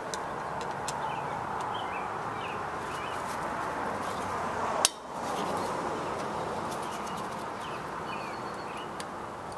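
Birds chirping over a steady background hiss, with a few faint metal clinks and one sharp click about halfway through.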